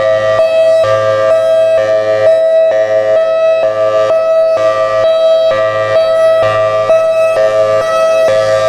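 Federal Signal Thunderbolt 1003 outdoor warning siren sounding its hi-lo signal, loud, with two tones alternating and switching about every half second.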